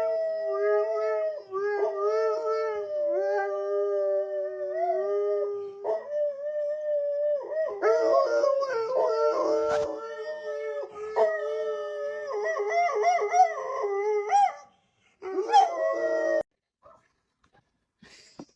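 Dog howling in long, drawn-out, wavering notes, broken by a brief pause near the end, before stopping.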